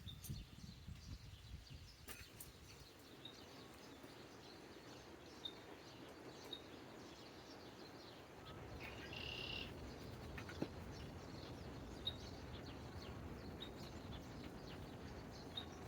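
Quiet background noise with a few faint, scattered bird chirps and a single light click near the middle; no drill runs.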